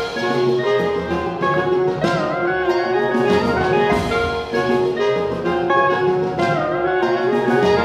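Live chamber music: a mixed ensemble of flute, clarinet, alto saxophone, bassoon, pedal steel guitar, banjo and drum kit playing a waltz, with sustained wind notes over plucked and light percussive strokes and a few wavering, sliding notes.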